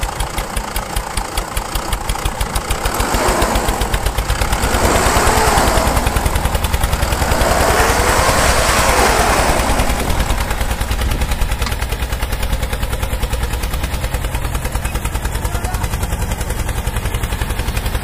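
Tractor engine sound, a fast, steady chugging pulse from the toy tractor as it pulls the chained pickup. It grows louder, with a gritty noise over it, from about three to ten seconds in.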